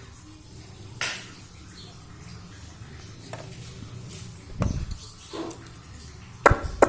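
A few scattered knocks and taps over a low steady hum: a soft rustle about a second in, a dull thump near the middle, and two sharp taps close together near the end.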